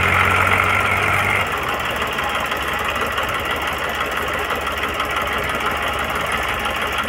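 Eicher 480 tractor's diesel engine running steadily, dropping back to a quieter, lower running level about a second and a half in.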